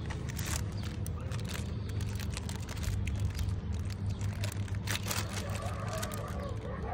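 Foil snack packet crinkling and rustling in a small child's hands, in scattered short crackles, over a steady low rumble.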